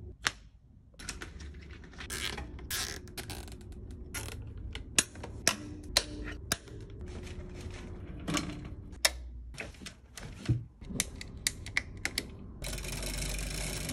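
Plastic mudguard and bike parts being handled and fitted: a run of irregular sharp clicks and taps over light rustling. Near the end a louder scraping rush as a handlebar grip is pushed on.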